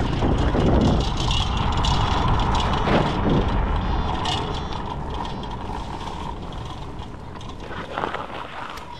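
Paramotor trike's engine and propeller running at high power through a takeoff roll, a loud steady drone over a deep rumble. The sound is loudest in the first few seconds, then gradually fades.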